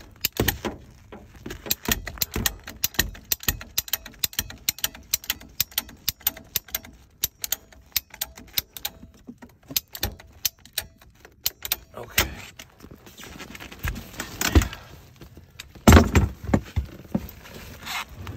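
Sharp metallic clicks and clinks, several a second, from a Yellow Jacket hand lever tube bender being worked onto three-quarter-inch copper refrigerant tubing. A few heavier knocks come near the end.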